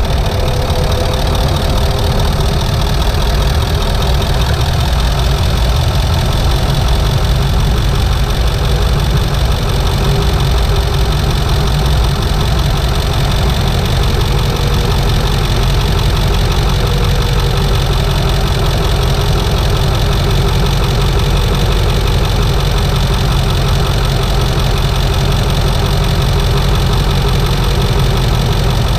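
1997 Ford F-250's 7.3-litre Powerstroke turbocharged V8 diesel running at steady, unchanging revs, heard up close from inside the engine bay.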